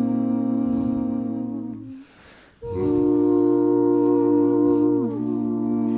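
Small vocal ensemble singing slow, sustained chords through face masks, the held notes sliding down together into a new chord. The singing breaks off for about half a second about two seconds in, then resumes.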